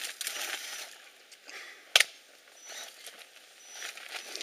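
A single sharp knock about two seconds in as the Axial SCX10 rock crawler tips over onto its side on the loose stones, with a few fainter clicks around it.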